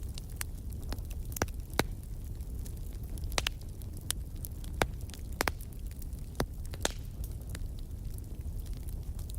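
Wood fire in a fireplace crackling, with irregular sharp pops over a low steady rumble.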